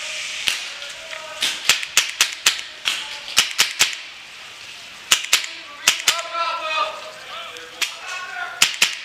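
Paintball markers firing: about fifteen sharp pops, scattered singly and in quick runs of two or three.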